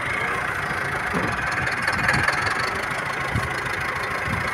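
Massey Ferguson 385 tractor's four-cylinder diesel engine running steadily at low speed as the tractor moves slowly along a farm track.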